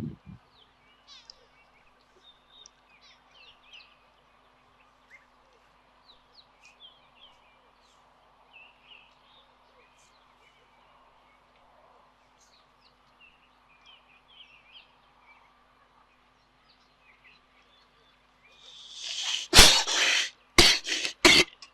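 A baboon close to the microphone coughs in a few loud, harsh bursts near the end, the first swelling up over about a second. Before that, only faint bird chirps over a faint steady hum.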